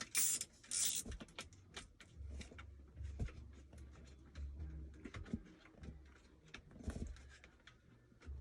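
Ratchet and 7 mm socket on an extension backing out a trim screw: short bursts of ratchet clicking in the first second, then faint scattered clicks and light knocks from the tool and the plastic trim.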